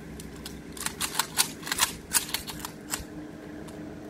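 Scattered metallic clicks and clacks of an honour guard readying Kalashnikov-pattern assault rifles as they raise them for a salute volley: about a dozen sharp clicks, uneven and out of step, over roughly three seconds.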